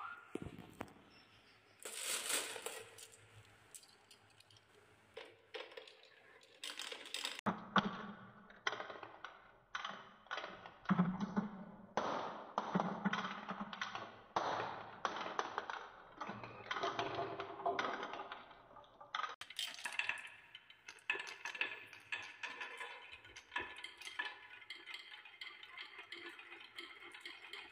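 Glass marbles rolling down a HABA wooden spiral track and along wavy wooden chutes, rumbling on the wood and clicking against it and against each other. At first there are only a few scattered clicks, then a dense, continuous clatter of many marbles from about a quarter of the way in.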